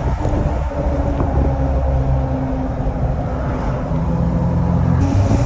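Ford F-350's tuned 6.7-litre Power Stroke diesel V8 running as the truck drives, a steady low drone that shifts slightly in pitch near the end.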